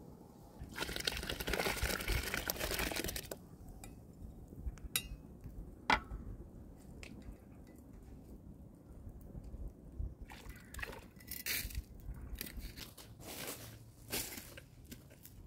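Pouring into a large cooking pot of hot water on a wood fire: a splashing pour lasting about two and a half seconds, then a sharp clink about six seconds in, and several shorter pours and scrapes near the end.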